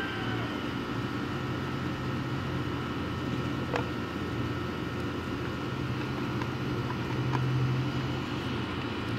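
Water from a garden hose running into a plastic jug, over a steady low drone.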